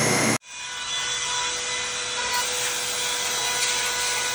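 Hobby CNC router's spindle motor running steadily as it mills a part: a constant whine with several steady tones over a hiss. The sound breaks off for an instant about half a second in, then carries on as before.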